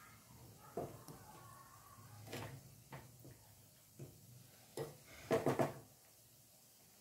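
Wooden spatula knocking and scraping against a non-stick kadhai while turning balushahi in sugar syrup. Scattered light taps, with a quick cluster of louder knocks about five and a half seconds in.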